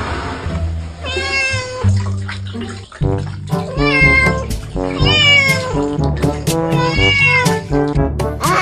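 A cat meowing about four times, each call rising and then falling in pitch, over background music.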